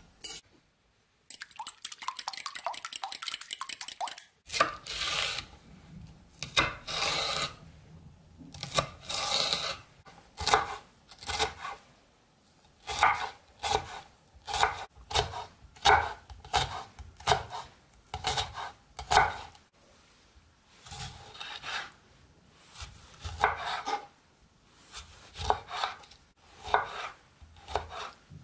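Chef's knife chopping red bell pepper and tomato on a wooden cutting board, in sharp strokes about once a second, sometimes in quick pairs. Before the chopping starts there are a few seconds of rapid light clicking.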